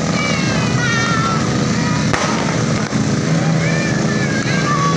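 Fireworks going off all around in a continuous rumble of bursts, with whistling fireworks gliding in pitch and a sharp bang about two seconds in.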